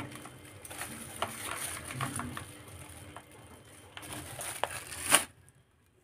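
A young parakeet rummaging with its beak among plastic food packets in a plastic basket: crinkling plastic with scattered small clicks and taps, busiest toward the end, ending in a louder crackle before the sound cuts off suddenly just over five seconds in.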